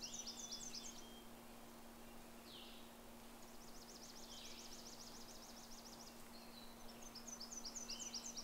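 Songbirds singing in woodland: a song of quick, high, falling notes near the start and again near the end, and a fast, even, high trill of about three seconds in the middle. A faint steady low hum runs underneath.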